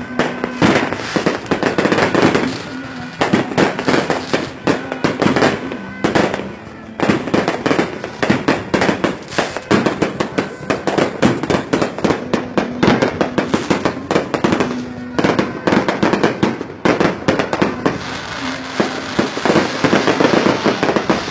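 Fireworks display: aerial shells bursting in a rapid, continuous barrage of bangs and crackling, with a few short lulls.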